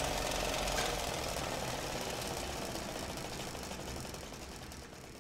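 A steady, rough rushing machine noise with a fast flutter, fading out toward the end.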